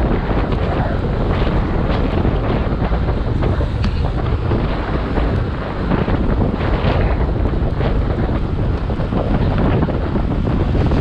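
Wind rushing over an action camera's microphone on a road bike ridden at speed: a loud, steady rumble with small gusts.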